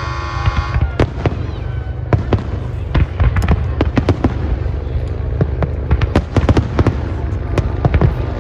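Fireworks going off: many sharp, irregular pops and bangs over a steady low rumble. A car horn is sounding at the start and cuts off just under a second in.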